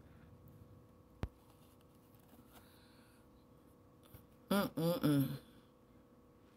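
A woman's short closed-mouth hum of about three quick syllables, like 'mm-hm-mm', muffled by a mouthful of cornstarch, about four and a half seconds in. A single sharp click comes about a second in.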